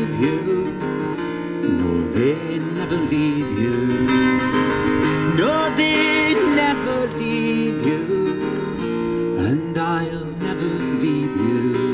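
Acoustic guitar strummed steadily, with singing voices wavering and gliding over it.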